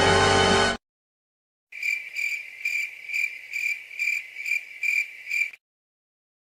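Cricket chirping, the classic awkward-silence sound effect: a steady string of about nine high chirps, roughly two a second, starting after a second of silence and stopping shortly before the end. A music clip cuts off abruptly just before it.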